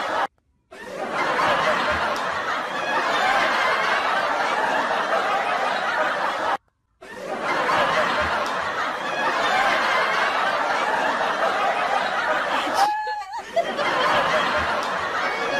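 Laughter sound effect, snickering and giggling, that stops dead for a moment twice, about six seconds apart, as the clip repeats.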